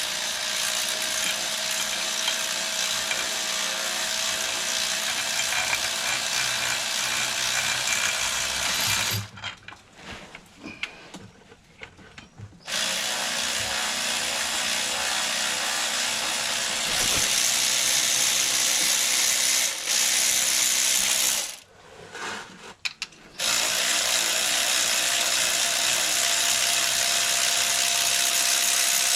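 Power impact wrench run hard in three long bursts on a penetrant-soaked pulley bolt, about nine, nine and six seconds long with short pauses between, trying to break the bolt loose.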